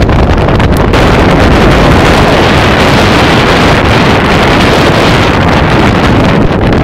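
Strong wind buffeting the camera's microphone on an exposed mountain summit: a loud, steady rumbling rush with no pitched sound in it.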